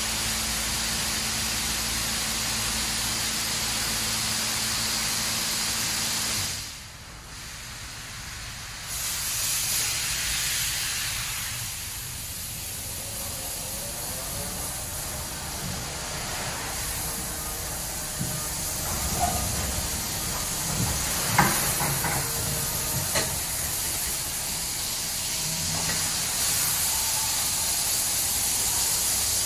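Superior Sidetrac 700 touch-free car wash spraying high-pressure water over a car, a steady hiss. The spray stops briefly about six seconds in, then starts again. Two sharp knocks come about two-thirds of the way through.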